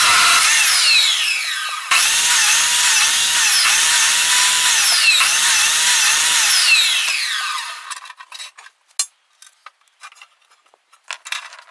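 Abrasive cut-off saw (chop saw) grinding through metal pipe, throwing sparks: a loud screeching grind with the motor's whine sagging again and again as the disc bites, briefly easing about 1.5 s in before a second cut. Near the end of the cut the saw runs down and falls quiet, leaving light clicks and knocks as the pipe is handled.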